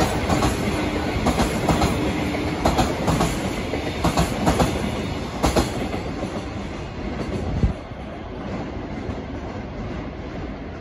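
Container freight wagons rolling past, their wheelsets clacking over rail joints in a run of sharp knocks over a steady rumble. The last wagons go by, with a final knock near eight seconds in, and the rumble fades.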